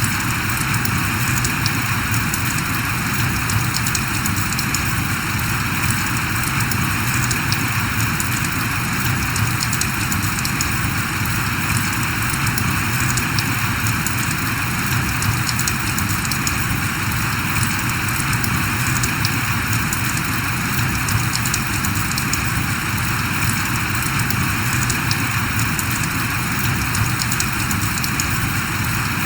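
Steady rain falling: an even, dense hiss with a fine patter of individual drops.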